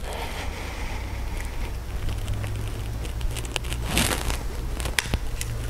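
Soft rustling and scattered small crackles of clothing and body shifting on a yoga mat, with one brief louder rustle about four seconds in, over a steady low hum.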